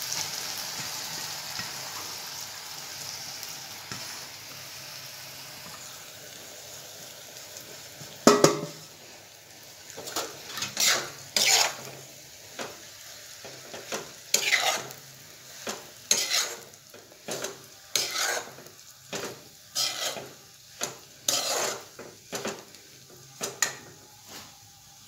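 Grated carrot and radish with green chillies sizzling in hot mustard oil in an aluminium kadai, the sizzle dying down over the first several seconds. Then comes a sharp knock, and a metal spatula scrapes and stirs the mix against the pan in strokes about once a second.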